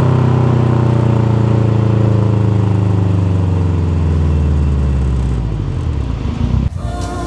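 Subaru STI's turbocharged flat-four exhaust through a factory performance muffler, holding a steady note for about two seconds and then falling slowly in pitch as engine speed drops, until it cuts off near the end.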